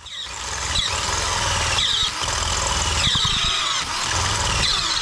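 A vehicle engine running, with a harsh, high-pitched scraping squeal over it that swells roughly once a second.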